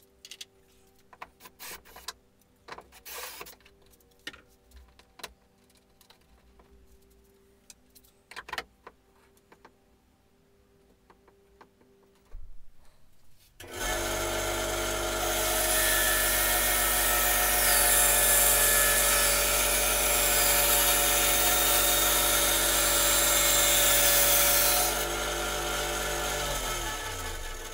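Scattered small clicks and knocks of parts being handled for the first half. Then a bandsaw starts and runs steadily while cutting a black workpiece. Near the end it is switched off and winds down with a falling hum.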